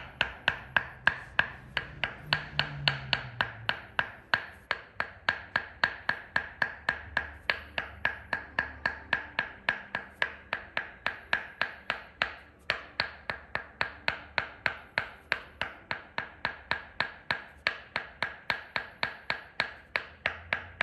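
Tok sen massage: a wooden mallet tapping a wooden wedge held against the thigh, making an even rhythm of woody knocks, about three and a half a second, each ringing at the same pitch. The tapping stops briefly about twelve seconds in.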